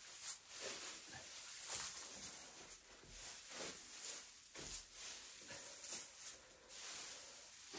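Dry straw being picked up by the handful and tossed over a shed floor, spread out as bedding: a run of short, dry rustling swishes.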